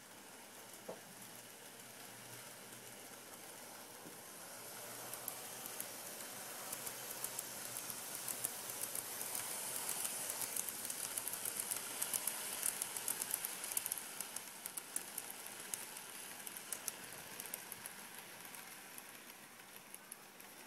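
Kato N-scale Amtrak model train running on the track: a light rattle of many fine clicks from the wheels on the rails, growing louder to a peak around the middle as the train comes close, then fading as it moves away.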